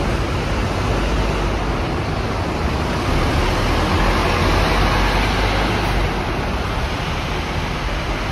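Scania single-deck city bus pulling away and driving past: its diesel engine runs with a low rumble under a steady rush of noise, a little louder as it passes about four to five seconds in, then easing as it moves off.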